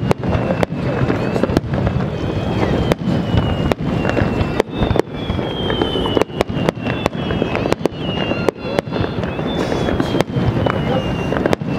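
Aerial firework shells bursting in quick succession: a dense run of sharp bangs over a continuous rumble, with a high whistle that slides down in pitch recurring several times.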